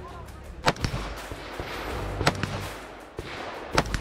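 Rifle fired three times, about a second and a half apart: slow aimed single shots.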